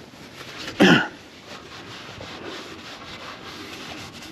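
Oil drain plug being put back into a 2002 Dodge Durango's oil pan by hand: rubbing and scraping of hands and metal, with one short loud knock about a second in.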